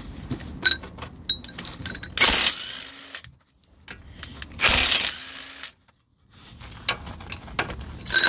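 Impact wrench run in two short bursts of about a second each, undoing 17 mm nuts on the lower suspension arm bolts, with light metallic clicks of the socket and nuts in between.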